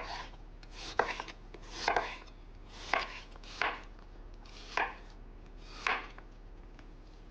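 Knife cutting peeled kohlrabi on a cutting board: separate sharp chops, roughly one a second and slightly uneven.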